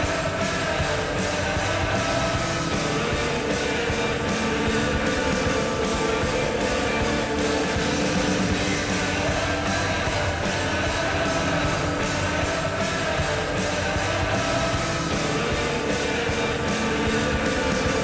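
Loud hard-rock music with electric guitar over a steady drum beat, played without a break: the Maine Nordiques' 2020 hockey goal song that follows the goal horn.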